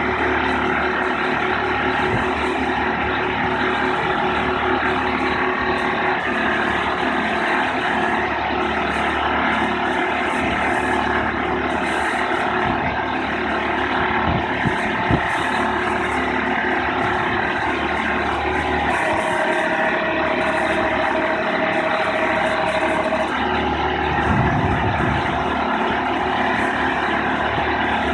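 Marine travel lift's engine and hydraulic hoist running steadily while lifting a sailboat in its slings. A higher whine joins for a few seconds past the middle.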